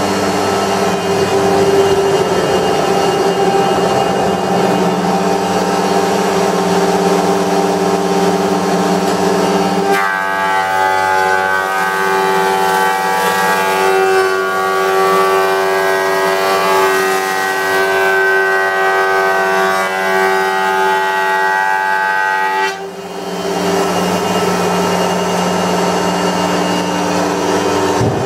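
Wood-Mizer planer running with a steady, strongly pitched machine hum. About ten seconds in, the tone shifts to a higher, richer set of pitches. Shortly after a brief dip near the end it returns to the first hum.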